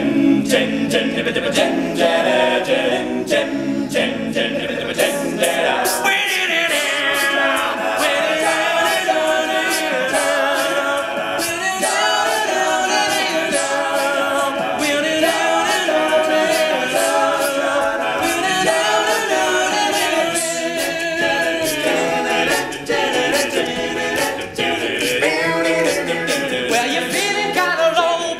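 An all-male a cappella group singing in harmony, with no instruments.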